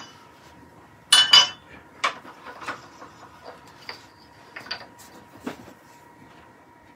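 Turned wooden leg pieces and metal lathe parts being handled: a sharp ringing clink about a second in, then a series of light separate knocks and taps of wood against wood and metal.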